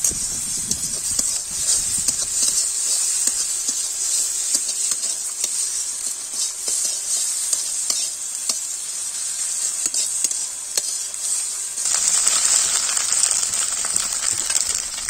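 Egg, onion and green chilli sizzling in oil in a metal karahi, with a metal spatula scraping and clicking against the pan as it is stirred. The sizzle grows louder about twelve seconds in.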